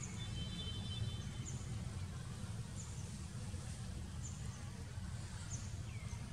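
Outdoor ambience: a steady low rumble, with a bird repeating a short, high, falling chirp about every second and a half. A brief buzzy higher tone comes near the start.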